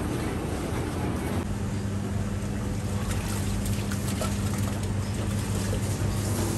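Steady low hum of running machinery, setting in about a second and a half in over a general noisy din.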